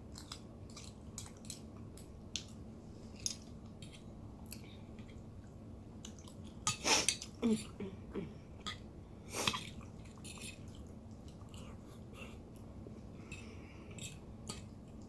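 A person chewing tteokbokki, chewy Korean rice cakes in sauce, close to the microphone: wet chewing and mouth smacks with many small clicks, and a couple of louder bursts about seven and nine and a half seconds in.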